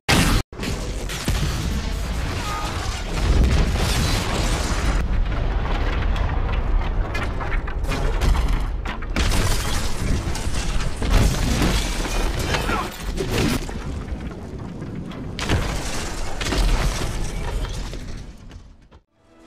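Battle sound effects: booms and crashes over a constant low rumble, with music mixed in, fading out near the end.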